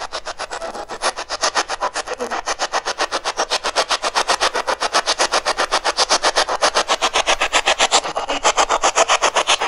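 Spirit box radio scanner sweeping through radio stations: a rapid, even chopping of static hiss about ten times a second.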